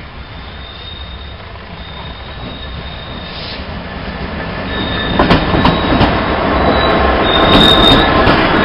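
Class 66 diesel locomotive approaching and passing close by with a train of engineering wagons, growing steadily louder over the first five seconds. A high wheel squeal comes and goes throughout, and from about five seconds in the wheels clatter and click over the track as the locomotive and wagons go by.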